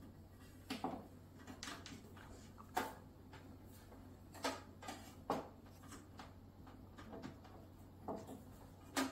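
Scattered light clicks and knocks as a toaster is set down on a hard acrylic base plate and its power cord and plug are handled against the metal bracket and countertop. The sharpest clicks come about three seconds in and again near the end.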